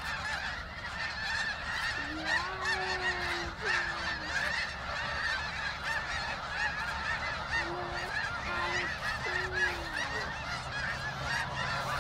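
A large flock of snow geese calling, many overlapping honks forming a steady din.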